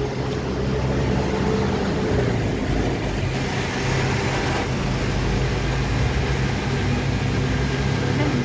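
Steady low hum of an idling motor vehicle engine, with street noise around it.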